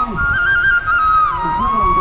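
Music with a flute melody that climbs in short steps, then settles on a long held note about halfway through.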